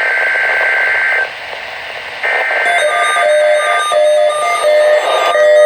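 NOAA Weather Radio SAME header data bursts: a harsh, buzzing digital warble. One burst ends about a second in, and static hiss follows until another starts about two seconds in. From about three seconds in, a stepping electronic melody of beeps plays over the second burst.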